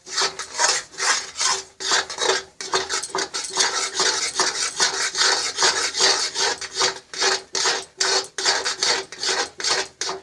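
A spatula scraping the bottom of a kadhai in rapid, repeated strokes, stirring thick besan halwa until the added sugar dissolves.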